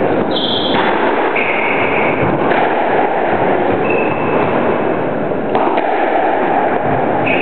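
Steady loud rushing noise in a squash court between rallies, with three brief high squeaks and a single sharp knock about five and a half seconds in.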